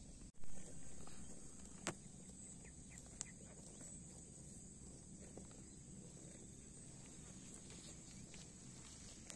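Faint pasture ambience around grazing cattle: a steady high-pitched hiss, a few soft clicks, and one brief loud bump about half a second in.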